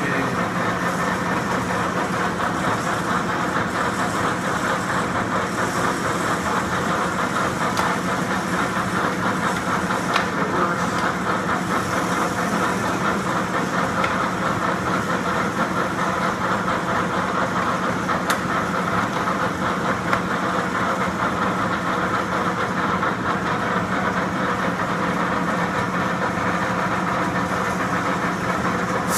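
Clausing Colchester 15x48 engine lathe running steadily under power, its headstock and drive giving a constant hum.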